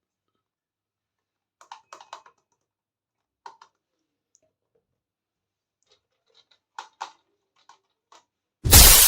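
Scattered light clicks and taps of small plastic toy pieces being handled, a few at a time, then a sudden loud noisy crash-like burst near the end.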